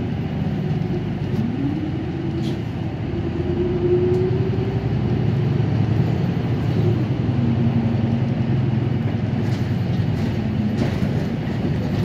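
City bus running: steady engine and road noise, the engine note rising about a second in as it pulls harder, then dropping back about seven seconds in as it eases off, and rising again near the end.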